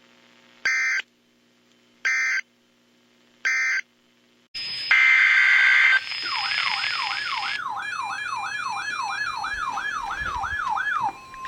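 Three short data bursts of an Emergency Alert System end-of-message code from a NOAA Weather Radio broadcast, over a faint hum. About four and a half seconds in, a loud steady electronic tone starts. It turns into a fast warbling, siren-like alert tone of about three sweeps a second, which near the end gives way to a steady single tone, the 1050 Hz weather radio warning alarm.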